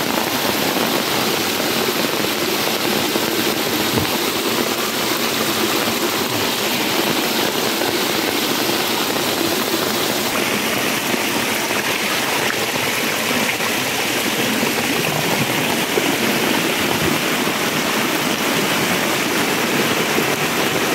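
Small rocky stream rushing steadily over stones, running high and rising after heavy rain. The rush turns brighter and hissier about halfway through.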